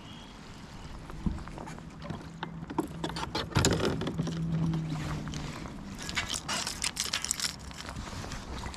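Small clicks, knocks and rattles of fishing gear being handled on a kayak, thickening into a busy clatter through the middle, over a faint steady low hum.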